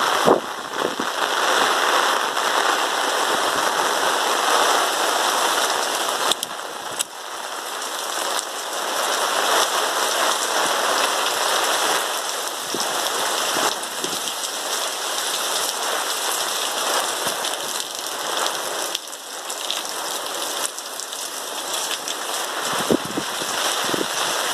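Heavy downpour of rain pouring and pattering on hard surfaces: a dense, steady hiss with scattered drop clicks. It is the first rain after a long dry heatwave, coming down in sheets.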